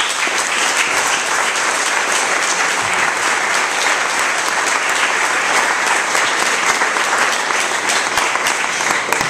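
Audience applauding: dense, steady clapping from a full hall, kept up at an even level throughout.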